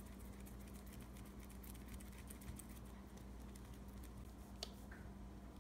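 Hands rolling a small lump of pretzel dough into a rope on a sheet of wax paper over a stone counter: faint, rapid rustling and tapping of the paper, with one sharper click near the end.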